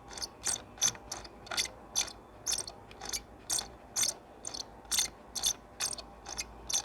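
The scroll wheel of a Canyon MW-9 computer mouse is being rolled back and forth and squeaks in short strokes, about two or three a second.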